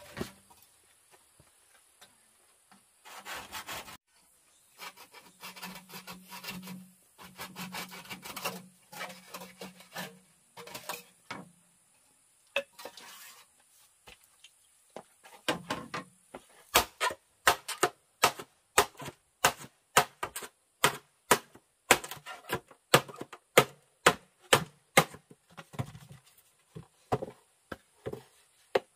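Bamboo being worked with hand tools. First come stretches of rasping, sawing-like strokes, then from about halfway a steady run of sharp knocks, about two a second.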